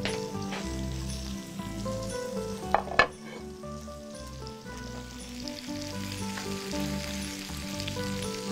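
Salmon steaks sizzling on a hot ridged grill pan, with a sharp knock of a spatula against the pan about three seconds in.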